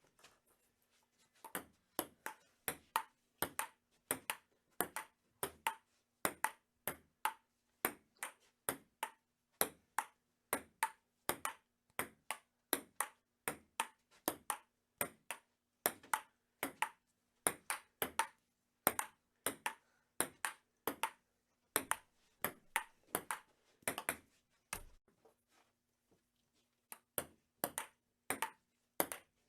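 Table tennis rally: a ping pong ball knocked back and forth, sharp hollow clicks of ball on paddles and table at about two a second. Play stops for about two seconds near the end, then starts again.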